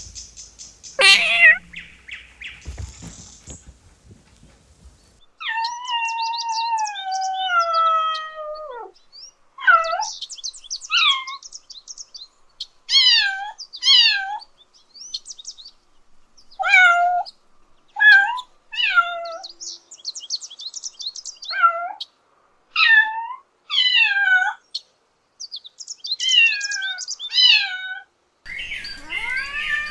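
Kitten meowing: one long high meow falling in pitch, then a dozen or so short high meows, often two in quick succession. A few knocks and clicks come before the meowing starts.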